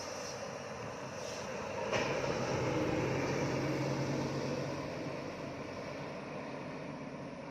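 A heavy road vehicle passing, its engine drone growing to its loudest from about two to four seconds in, then fading away. There is a short knock about two seconds in.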